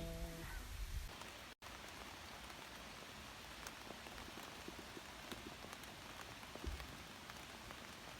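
Light rain falling: a faint steady hiss with scattered small drip ticks. It follows a short cut, after guitar music dies away in the first second.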